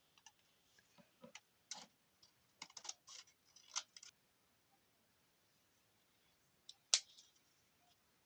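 Faint, scattered clicks and crinkles of plastic and cardboard toy packaging being handled, with one sharper snap about seven seconds in.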